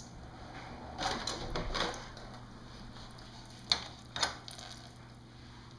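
Thin stream of water trickling from a vacuum-operated motorcycle petcock onto a wet concrete floor, the reserve outlet open under vacuum. A brief clattering rustle comes about a second in, and two sharp clicks just before and after four seconds in.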